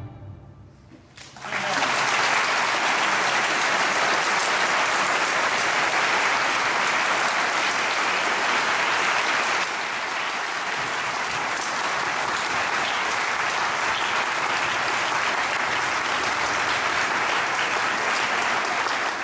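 The last notes of a school concert band die away, then the audience breaks into steady applause about a second and a half in.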